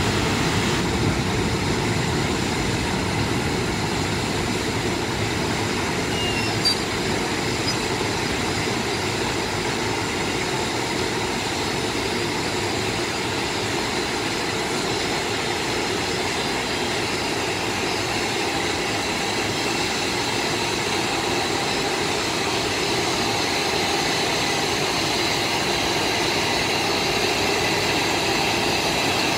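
JR Freight EF510 electric locomotive running steadily as it creeps past at low speed, a continuous mechanical hum with faint whining tones above it. A single short click about seven seconds in.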